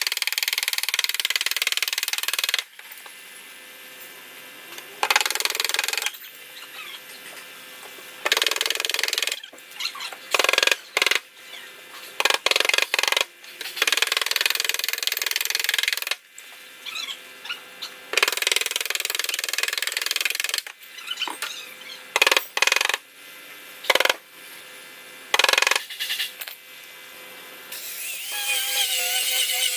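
A hand-held power tool run in bursts on car bodywork: a few stretches of several seconds, then many short bursts with quieter pauses between.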